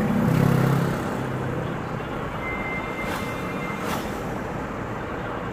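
Steady engine hum and road noise of a car driving along an asphalt road, with the engine's pitched hum strongest in the first second. A faint high steady tone sounds for about a second in the middle.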